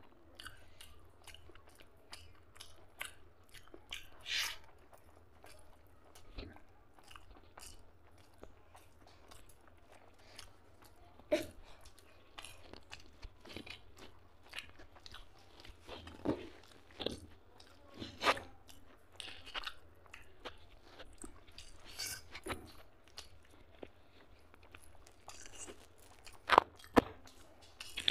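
Close-up chewing of rice and mutton fat curry, eaten by hand: a run of short, irregular wet clicks and smacks, with a few louder smacks in the second half.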